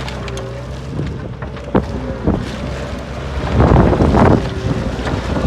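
New Holland LS170 skid steer engine running steadily, with a couple of sharp clicks. From about three and a half seconds in, heavy wind buffeting on the microphone comes over it.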